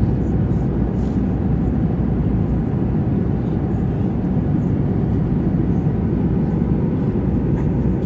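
Steady low rumble inside a jet airliner's cabin.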